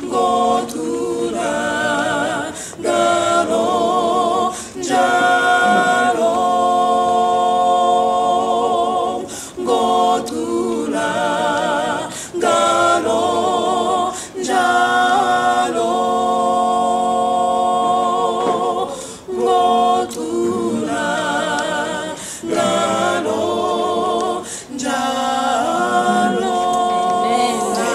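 Small mixed vocal group of two men and two women singing a hymn a cappella in harmony: long held chords with vibrato, in phrases broken by short pauses for breath.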